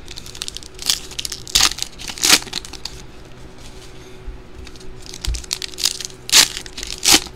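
Foil trading-card packs being torn open and crinkled by hand, in several short crackling bursts, the loudest about six seconds in.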